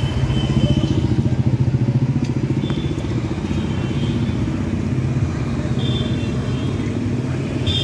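A motorbike engine running steadily, a low, fast-pulsing rumble that is a little louder in the first couple of seconds.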